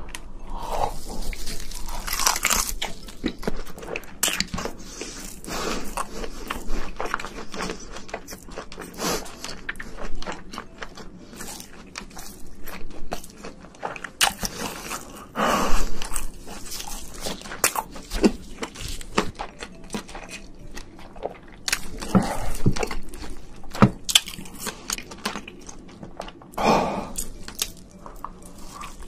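Close-miked mouth sounds of a person biting and chewing giant shrimp meat: irregular wet smacks and soft crunches, with a few louder bites scattered through.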